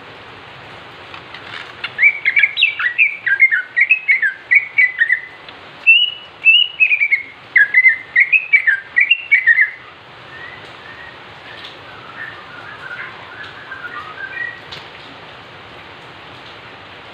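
Male green leafbird (cucak ijo) singing: loud whistled, chattering phrases that swoop up and down in pitch for several seconds, then softer, quicker warbling notes near the middle. A steady hiss runs underneath.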